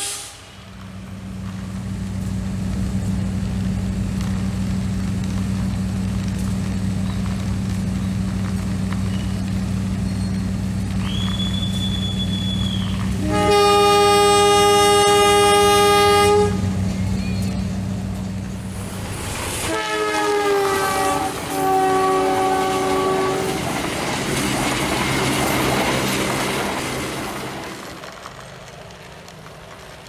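Battery-powered toy model train of a CC 206 locomotive running on plastic track, its motor giving a steady low hum. About halfway its long electronic horn sounds for a few seconds, the loudest thing here, followed shortly by a second two-part horn call; near the end the hum fades out as the train stops.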